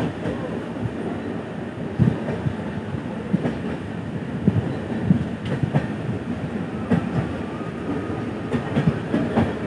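A moving passenger train heard from inside the coach: a steady rumble of running wheels, with irregular clacks as the wheels pass over rail joints.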